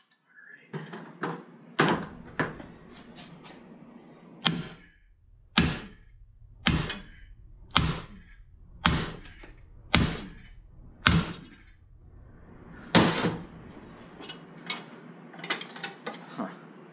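Hammer blows on a TIG-welded aluminum test piece clamped in a bench vise, struck to break the weld. There is a steady run of heavy, ringing metal-on-metal strikes about one a second, the hardest a little before the end, with lighter taps near the start and finish.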